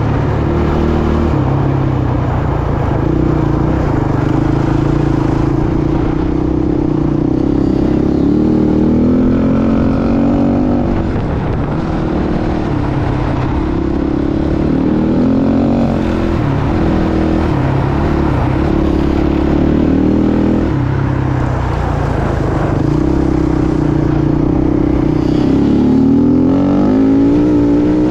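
Dirt bike engine running at speed on ice, its pitch climbing and dropping again and again as it revs up and shifts.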